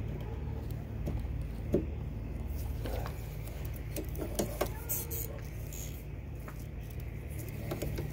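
Scattered small clicks and taps of a windshield wiper blade being handled and worked against its wiper arm while it is being taken off. A steady low hum runs underneath.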